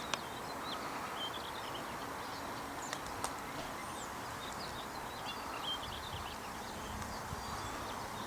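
Outdoor ambience: a steady noise bed with faint, scattered chirps of distant songbirds and a few soft clicks.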